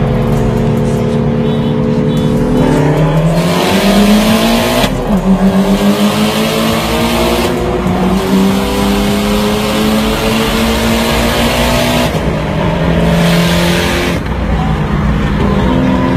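Car engine under hard acceleration in a drag race, heard from inside the cabin. It holds steady, then climbs in pitch, drops sharply at a gear change about five seconds in, and keeps climbing with bursts of loud rushing hiss. It eases off about twelve seconds in.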